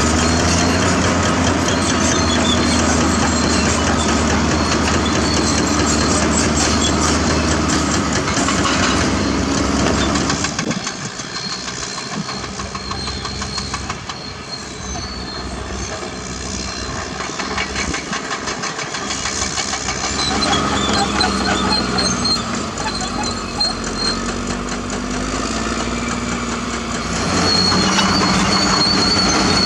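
Caterpillar D6R crawler dozer's diesel engine running loud under load with dense rapid clatter. About ten seconds in it drops to a quieter, lower note, then builds back up and returns to full strength near the end.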